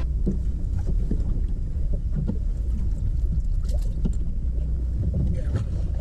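Steady low rumble of wind on the microphone and water around a bass boat, with a few faint knocks and clicks from the angler moving on the deck.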